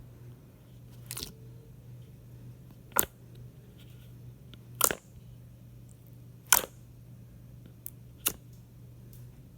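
Slime being squeezed and poked, giving about six sharp popping clicks at uneven intervals, three of them much louder than the rest, over a faint steady low hum.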